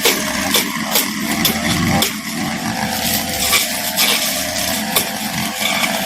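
Brush cutter fitted with a cutting blade running at high revs and cutting through undergrowth, its steady engine note broken by frequent sharp cracks as the blade strikes stems.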